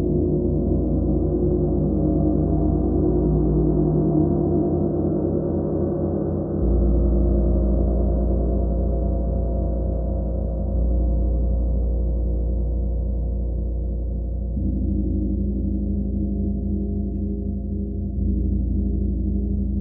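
A gong sounding continuously, a dense low hum of many overlapping tones. The lowest tones swell up again a few times, about a third of the way in, near the middle and near the end.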